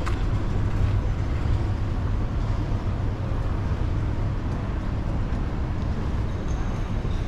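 Moving escalator running with a steady low rumble, with one short click right at the start.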